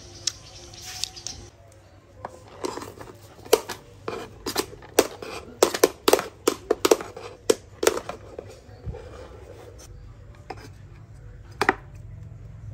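Wooden spoon scooping cooked rice in a metal mess tin: a run of sharp clicks and knocks in the middle as the spoon hits the tin, and one more near the end.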